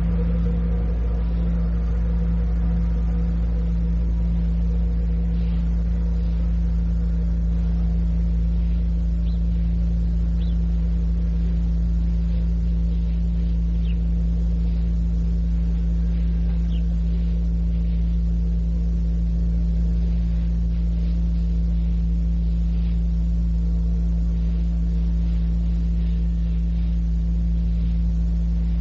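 Steady electrical hum with a few faint overtones over tape hiss on an old cassette recording, unchanging throughout, with a few faint, short high-pitched chirps.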